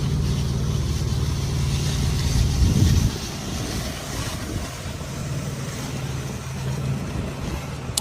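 A heavy engine running steadily, louder through the first three seconds, then easing to a lower steady level.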